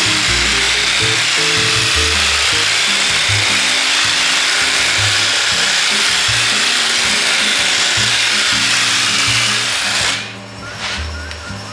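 Pneumatic air file sanding fiberglass on a car body: a steady hissing rasp that stops about ten seconds in. Background music plays underneath.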